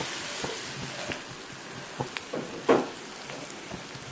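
Bitter gourd pieces sizzling in hot oil in a frying pan while a spoon stirs them. The spoon scrapes and knocks against the pan several times, most loudly about two and a half seconds in.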